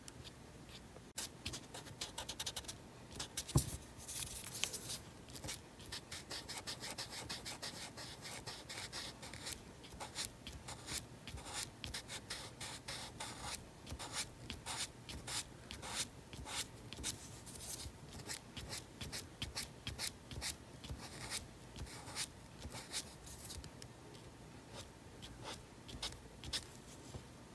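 Marker tip rubbing and scratching across paper in quick, repeated short strokes as an area is coloured in, with a single light knock about three and a half seconds in.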